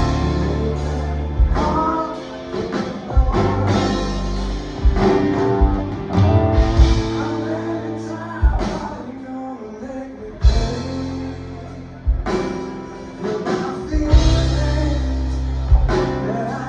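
Rock band playing live: a lead vocal sung over sustained bass and guitar, with sharp drum hits at irregular intervals.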